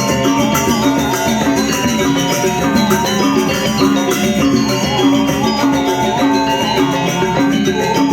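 Balinese gamelan playing: dense ringing metallic percussion with a wavering high melody line held over it.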